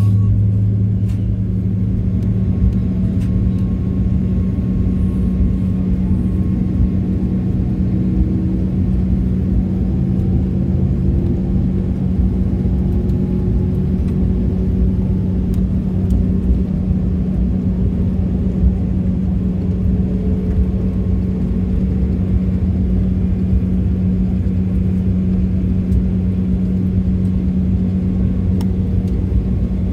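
Jet airliner cabin noise while taxiing: the engines make a steady drone with a strong low hum, and a faint tone slowly rises in pitch through the middle.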